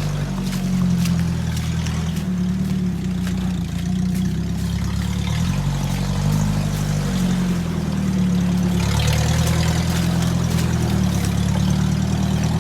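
UAZ off-road vehicle's engine running under load as it drives along a forest track, its revs rising and falling a few times.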